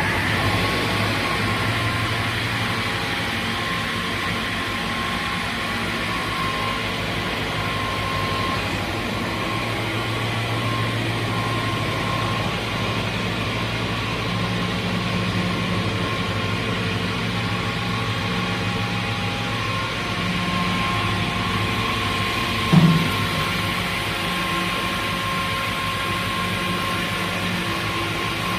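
Brodpol WP200 two-shaft multi-rip saw, driven by two 55 kW motors, running with a steady hum and whine. A single short knock comes late on.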